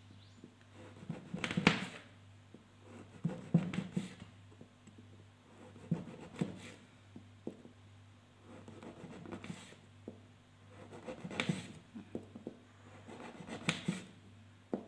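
A knife cutting through a once-baked log of fekkas (Moroccan twice-baked biscuit) on a hard counter, making a short scraping crunch roughly every two seconds as each slice is cut. The log is being sliced before its second bake.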